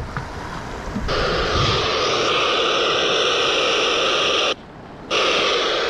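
Static hiss, like an open radio channel, that switches on suddenly about a second in, cuts out for half a second, then comes back.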